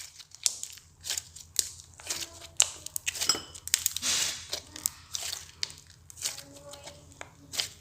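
Slime being squeezed and worked by hand, giving irregular crackling pops and clicks, with a longer squelching hiss about four seconds in.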